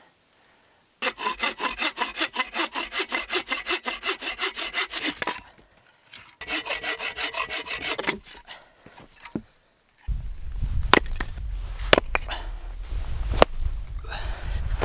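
Wood being sawn by hand for firewood: two runs of quick, even back-and-forth saw strokes through a log. From about ten seconds in, a low rumble with several sharp knocks about a second apart as a hatchet chops into the wood.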